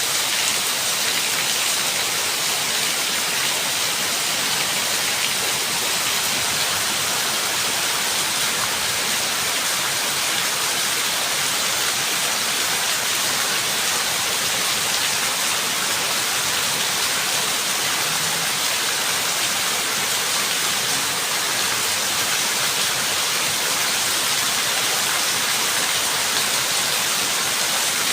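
Steady, even rain hiss with no let-up, a continuous patter of heavy rain.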